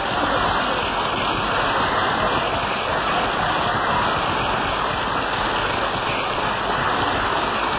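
Steady, muffled rushing noise with no clear events in it.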